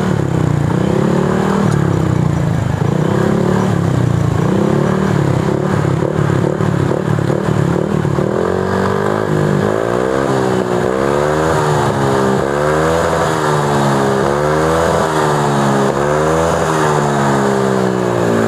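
Yamaha NMAX 155 scooter's single-cylinder engine revved repeatedly through an SKR standard-look racing muffler with a newly fitted insert, giving a quiet, mellow exhaust note. The throttle is blipped in slower swells at first, then from about halfway in quicker rises and falls about once a second.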